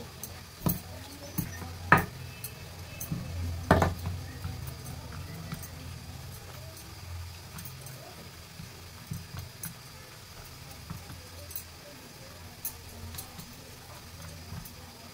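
Wooden rolling pin rolling paratha dough on a table, with three sharp knocks of the pin in the first four seconds. After that, soft rubbing and pressing as hands stretch the dough into a square.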